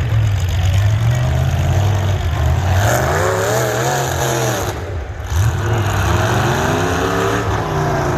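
Truck engines running loud, with the pitch rising and falling twice as an engine is revved.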